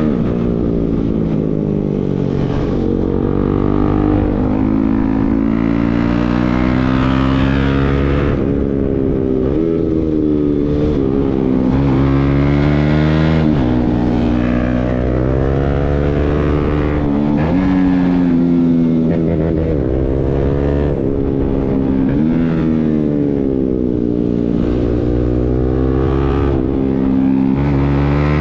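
Single-cylinder Bajaj Pulsar NS motorcycle engine running through an aftermarket Akrapovic exhaust while being ridden. The engine pitch climbs and falls repeatedly, with several sudden drops.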